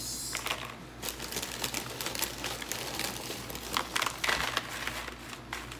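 A chip bag crinkling as tortilla chips are shaken and pulled out of it, the chips clattering into a dish in many small, irregular crackles and clicks, thickest a little after four seconds in.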